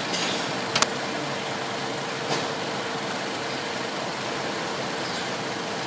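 Car engine idling steadily with its newly installed alternator, a faint steady whine over the engine noise. A single sharp click about a second in.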